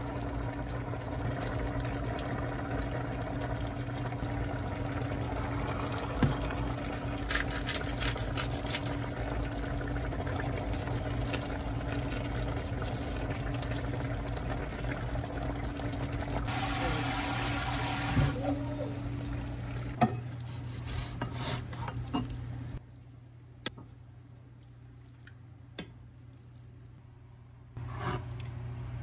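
A pan of spicy braised chicken simmering and bubbling on an induction hob, with a wooden spatula stirring through it, over a steady hum. A brief rush of hiss comes about two-thirds of the way through. Then the hum and simmer cut out, and a few light knocks follow.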